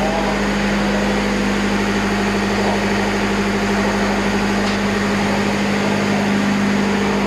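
Diesel machinery running steadily in a ship's engine room: a loud, unbroken drone with a strong low hum.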